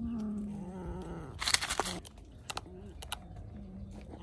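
A kitten growling low and steadily while eating raw fish, with a burst of crunching about a second and a half in as it bites into the fish, then a few single clicks.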